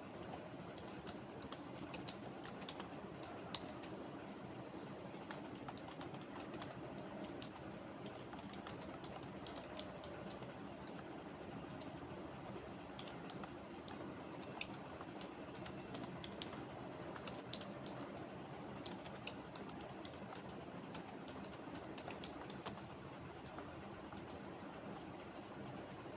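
Computer keyboard typing: irregular runs of key clicks over a steady background hum.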